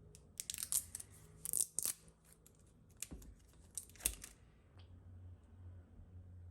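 Kitchen handling noises from sandwich making: two short clusters of crisp crackling and clicking, the first starting just after the beginning and the second about three seconds in.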